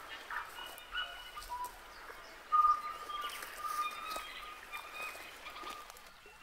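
Forest birds singing clear whistled notes, the loudest about two and a half seconds in, with a few crunching footsteps on twigs and leaf litter.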